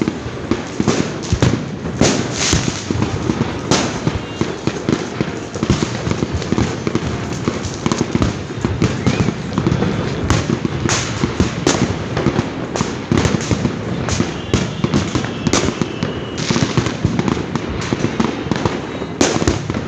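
Continuous barrage of New Year's fireworks and firecrackers: dense crackling with many sharp bangs, a few standing out louder than the rest.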